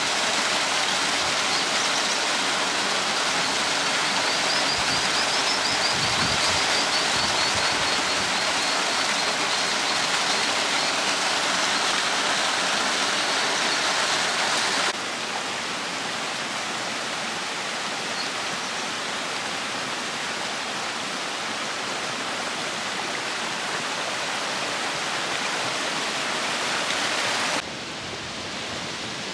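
Small waterfall splashing into a rocky pool, a steady rushing hiss that steps down in level about halfway through and again near the end.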